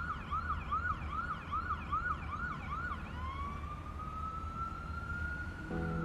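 A siren-like wail opening a piece of electronic music. It yelps quickly up and down, about three times a second, for some three seconds, then turns into one long slow rising wail over a low rumble. Steady musical notes come in near the end.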